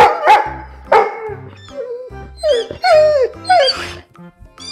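Dog barking and yelping: loud sharp barks near the start and about a second in, then a run of short calls that each fall in pitch, over background music.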